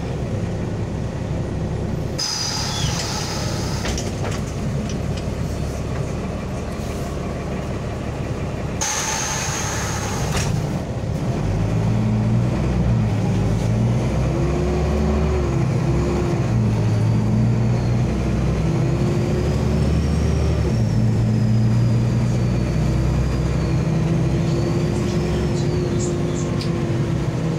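LAZ city bus heard from inside: two bursts of compressed-air hiss, about two seconds in and about nine seconds in, then the engine gets louder as the bus pulls away. A whine rises and falls in pitch over the steady engine drone.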